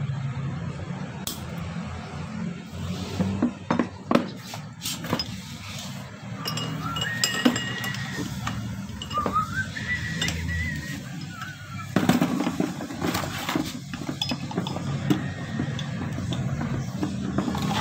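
Metal hand tools clinking and knocking against a car AC compressor's clutch and pulley as a gear puller and a rod are worked on it: scattered sharp clinks, a cluster of several about four to five seconds in and again about twelve seconds in, over a steady low hum.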